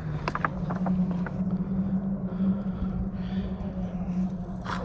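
A steady low engine hum, with a few light clicks in the first second or so and a sharper click near the end.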